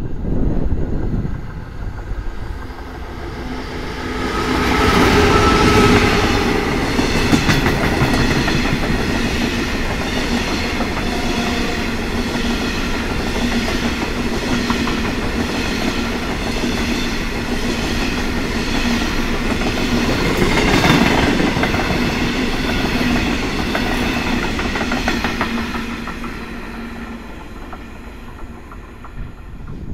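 A diesel-hauled freight train of bulk hopper wagons passing close by. The locomotive comes up loud about five seconds in, then the long rake of wagons rolls past with a steady, even clickety-clack of wheels over the rail joints and a steady droning tone. The sound fades near the end as the train draws away.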